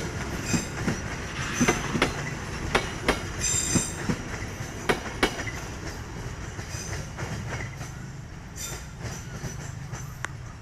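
Train passing over a level crossing: its wheels clack sharply over the rail joints, with a brief high wheel squeal about three and a half seconds in. The clacks thin out and the sound slowly fades as the train moves away.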